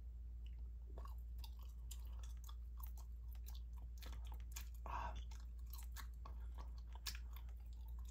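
Gum chewed close to the microphone: irregular wet clicks and smacks, with a brighter smack about five seconds in, over a low steady hum.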